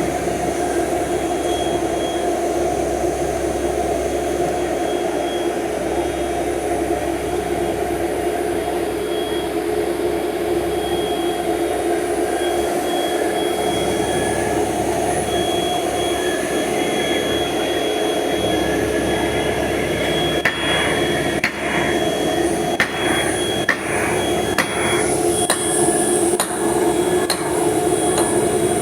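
A machine's engine runs steadily, and in the last third a series of sharp hammer blows on metal sounds over it, with short gaps between strikes.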